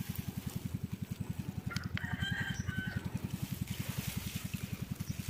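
A small engine running steadily with a rapid, even putter, about a dozen beats a second. About two seconds in, a rooster crows once over it, for about a second.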